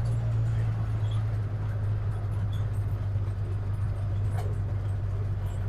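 A vehicle's engine running steadily, a constant low hum with faint rattling over it.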